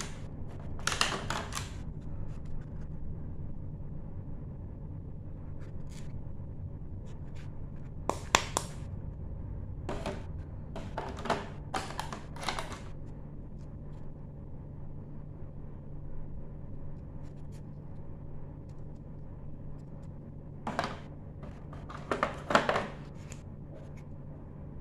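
Small plastic toy furniture pieces being pried out of a clear plastic blister tray: short bursts of crackling and clicking a few seconds apart, over a steady low hum.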